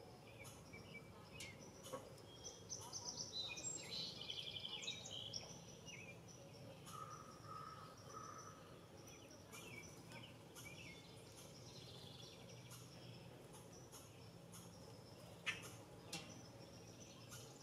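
Faint backyard birdsong: several small birds chirping and calling, busiest a few seconds in, with two sharp clicks near the end.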